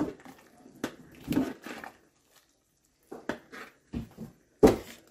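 A spoon stirring thick vegetable soup in a pressure cooker pot, knocking and scraping against the pot in irregular bursts with a short pause in the middle. The loudest knock comes near the end.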